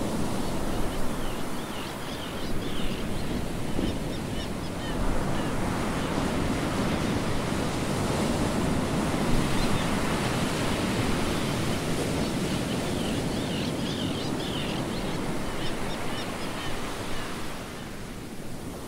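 Small waves washing onto a sandy beach, a steady surf hiss, with short high chirps in two spells, near the start and again late on.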